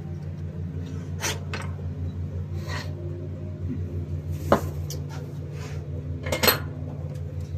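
Small metal tools and carburetor parts clinking and scraping on a workbench, with a few sharp clicks, the loudest about four and a half and six and a half seconds in. A steady low hum runs underneath.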